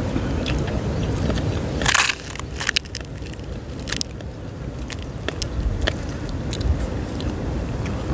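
Crunching and crackling of crisp deep-fried fish being chewed and broken apart by hand, in short irregular crunches with a louder rustle about two seconds in, over wind rumbling on the microphone.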